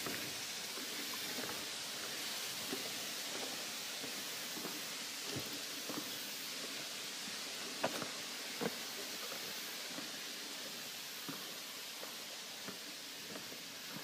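Steady hiss of leaves rustling outdoors, with irregular soft crunches of footsteps on a gravel trail.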